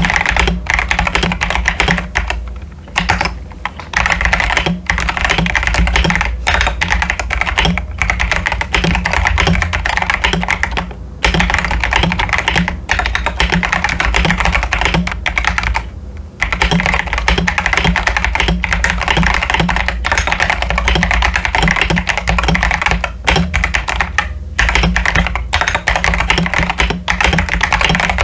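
Typing on a modded CIY Tester 68 mechanical keyboard with stock Akko Jelly Purple switches and ASA-profile PBT keycaps: a dense, steady stream of keystrokes, broken by a few short pauses.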